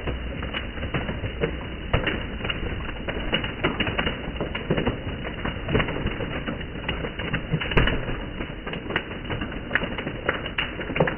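Twin-shaft shredder's toothed cutter discs tearing through a large rubbery stretch-monkey toy: dense, irregular crunching and snapping over the steady low hum of the machine, with a louder snap about eight seconds in.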